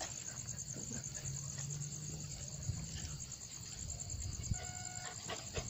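Crickets chirring steadily in a high-pitched, finely pulsing chorus, over low rustling from walking and handling. About four and a half seconds in, a short flat tone sounds for about half a second.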